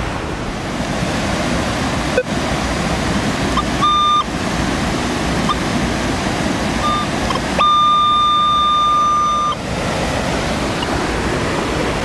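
Minelab Vanquish metal detector beeping as it passes over a metal target: a short tone about four seconds in, a few brief blips, then a steady tone of about two seconds near the end. Flowing stream water hisses underneath.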